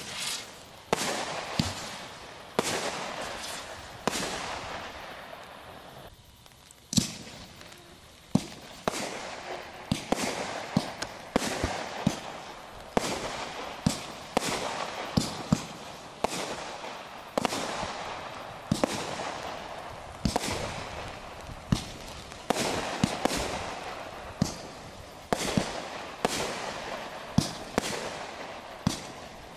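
Shogun 25-shot multishot fireworks cakes firing: a rapid run of sharp launch reports and aerial shell breaks, each trailing off in a hiss of burning stars. The shots thin out briefly about six seconds in, then resume at a steady pace as the next cake fires.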